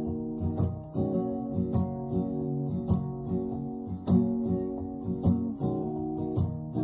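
Acoustic guitar strummed in a steady rhythm, about two strokes a second, the chords ringing between strokes.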